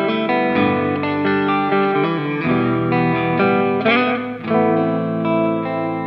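Charvel SL-145 electric guitar played with a clean tone: single picked notes ringing into one another, with a sharper accent about four seconds in.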